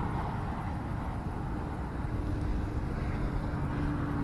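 Steady low outdoor rumble, with a faint steady hum coming in about a second and a half in and holding on.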